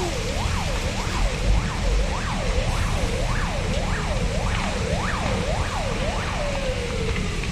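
Emergency vehicle siren in a fast yelp, its pitch sweeping up and down about twice a second, then switched off near the end with the pitch sliding down. A steady low rumble runs underneath.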